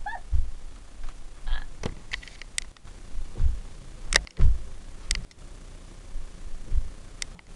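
Irregular dull thuds of hands and feet landing on a wooden floor and a bed as a girl does handstands and cartwheels, with a few sharp clicks and knocks in between.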